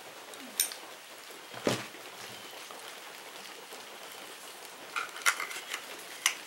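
Hands handling a length of nylon bank line: a few light clicks and rustles, scattered and then bunched near the end, over a steady faint hiss.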